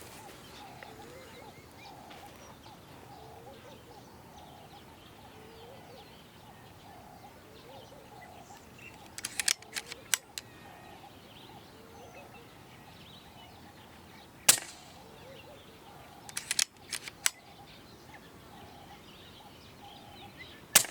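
Two suppressed shots from a .22 Daystate Alpha Wolf PCP air rifle, sharp cracks about six seconds apart, the second one near the end. Short runs of mechanical clicks come before each shot. Birds call over and over in the background, about twice a second.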